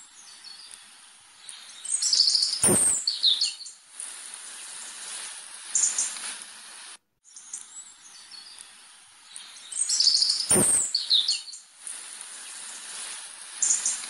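Birds chirping: short high calls and quick falling notes over a steady hiss, with a sharp click among the loudest calls. The same few seconds of birdsong play twice, cut off by brief dropouts in between.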